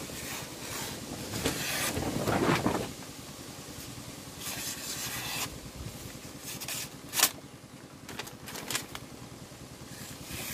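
Sheet of paper being sliced with a sharp high-speed steel knife, testing the edge: crisp swishes and paper rustles, the loudest about two seconds in, with a sharp tick a little after seven seconds.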